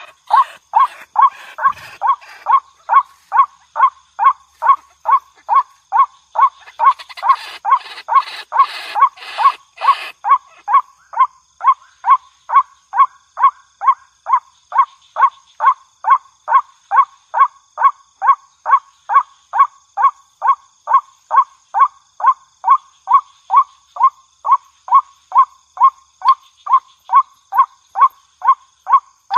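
Waterhen calling: one short note repeated very evenly, about twice a second. A crackly, scratchy noise runs over the calls for a few seconds about a quarter of the way in.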